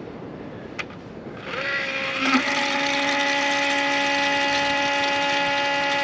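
John Deere 9430's electric low-pressure fuel pump, on top of the fuel filter housing, switching itself on about one and a half seconds in: its whine rises in pitch, then settles into a steady high electric hum. It runs with the key off and the engine stopped, which the mechanic takes for a failed pump whose electronics have probably shorted out.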